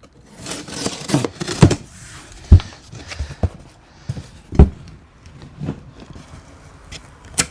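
A shipping package being opened and its contents handled: rustling of packaging for the first couple of seconds, then scattered sharp knocks, the loudest about two and a half and four and a half seconds in, with another near the end.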